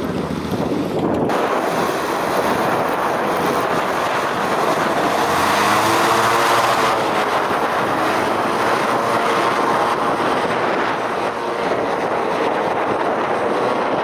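Christy 7186 FC hovercraft running fast over water: its caged thrust propeller and engine blend with spray and heavy wind buffeting on the microphone. The sound changes abruptly about a second in, and it swells around six seconds in as the craft passes.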